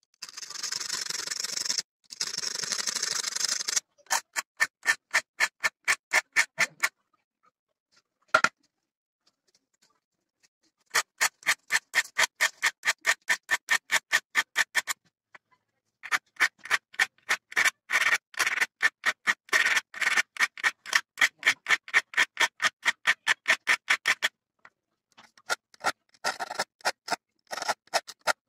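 Small file sharpening the cutting edges of an old auger bit: short scraping strokes of steel on steel at about four a second, in several runs with pauses between. The first few seconds hold two longer continuous scrapes.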